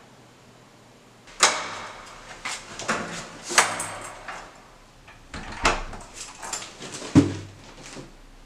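Wooden apartment door being opened and handled, in a run of sharp knocks and clunks. The loudest come about a second and a half, three and a half and seven seconds in, and the last has a low, hollow ring.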